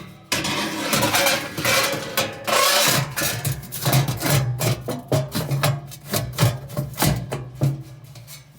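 Background music with drums and percussion over sustained bass notes.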